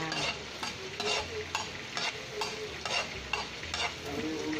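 Stainless steel spatula stirring and scraping chopped garlic around a ceramic-coated pan, two to three strokes a second, over the hiss of the garlic frying in oil.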